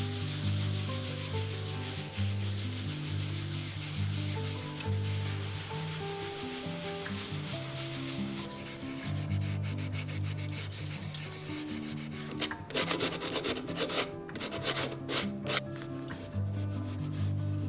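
A cloth rubbing oil into a wooden cutting board: a steady hiss of rubbing, then quicker back-and-forth strokes from about two-thirds of the way in as a cracked corner is polished smooth. Soft background music with held notes plays throughout.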